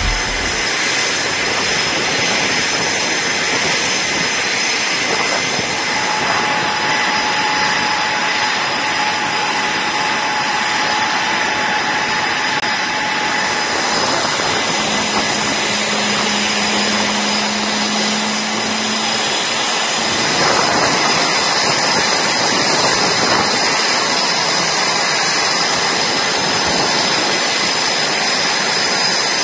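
Jet aircraft engines running on a carrier flight deck: a loud, steady rush of noise with high whining tones held throughout. A lower tone joins for a few seconds near the middle.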